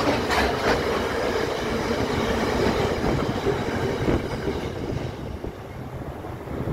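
Container freight train's wagons rolling past with steady wheel-on-rail noise. The sound fades as the last wagon goes by, about five seconds in.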